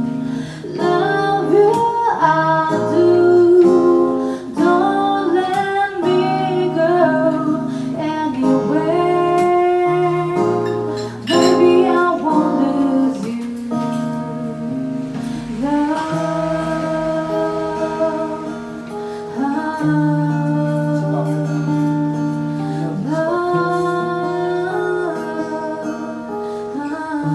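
Female singer performing a song live, accompanied by guitar.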